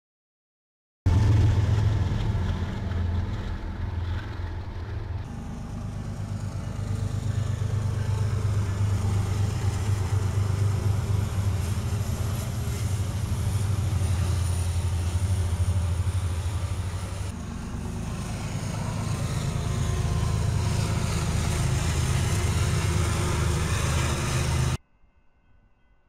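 Diesel freight locomotives running, a steady low engine drone that shifts in level about five and seventeen seconds in. It starts abruptly about a second in and cuts off just before the end.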